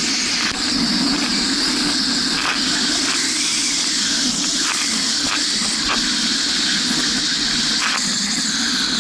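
Bombardier Sea-Doo jet ski engine running at steady speed, a constant drone under the rush of wind and spray on the craft-mounted microphone.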